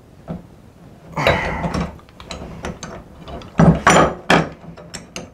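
Faucet socket and pipe wrench working a corroded old brass Price Pfister shower valve stem loose: a grating scrape about a second in, then a string of metal clicks and clinks with a few loud sharp knocks near the middle as the loosened stem and socket are handled.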